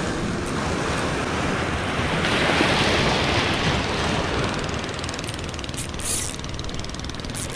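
Sea waves washing and breaking against a rock breakwater: a steady rushing wash that swells into a louder surge about two to three seconds in.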